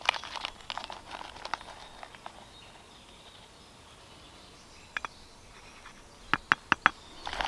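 Rustling as ground coffee is scooped from a pouch with a wooden spoon, then a quiet stretch. Near the end, a quick run of four sharp light taps, the spoon knocking against the rim of a moka pot's metal filter basket as the coffee is shaken off it.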